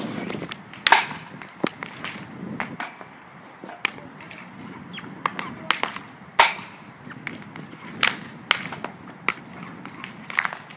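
Ice hockey stick slapping pucks on a paved driveway: a string of irregular sharp clacks, a dozen or so, with the loudest shots about a second in and about six and a half seconds in.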